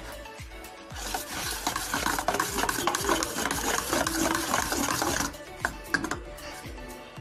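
A fork briskly stirring wet gram-flour batter in a steel bowl, a busy run of slopping and small clicks against the metal for about four seconds, then a few single taps.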